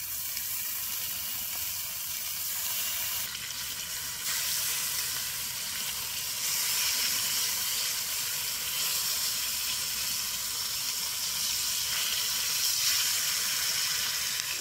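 Bacon sizzling and frying in a cast-iron skillet over a wood fire, a steady hiss that grows a little louder about four seconds in.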